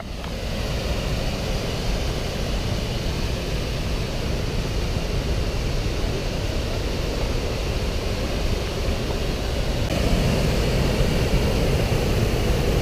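Waterfall rushing: a steady roar of whitewater pouring over rock, a little louder from about ten seconds in.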